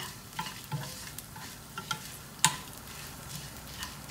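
Curry leaves, grated coconut and dried red chillies frying in a little oil in a small nonstick pan while a spoon stirs them: a faint sizzle with scattered scrapes and taps of the spoon, one sharper knock about two and a half seconds in.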